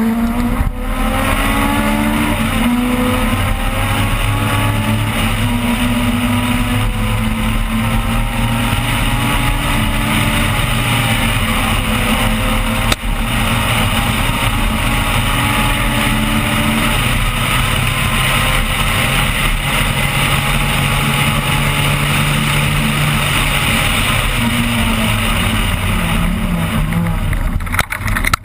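Opel Kadett rally car's engine heard from on board, driven hard at high revs, its pitch climbing and dropping through gear changes and corners. There is a brief lift off the throttle about halfway through and another near the end.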